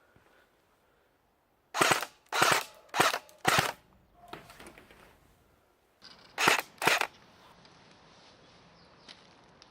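Electric airsoft Tommy gun firing 6 mm plastic BBs, six short sharp reports: four in quick succession about two seconds in, then two more about six and a half seconds in.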